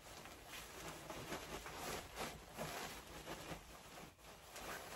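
Faint, irregular rustling of a padded puffer jacket's fabric as the hood is handled and pushed back off the head.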